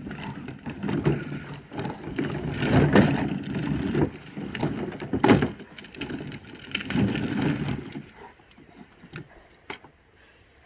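A dog playing roughly with a toy car: irregular knocking and scraping of the toy mixed with low dog noises, dying down to a few faint knocks after about eight seconds.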